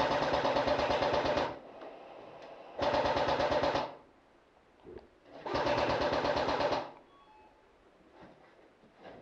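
Airsoft electric rifle firing three full-auto bursts, each a second or more long: a fast, even mechanical rattle of the gearbox cycling shots.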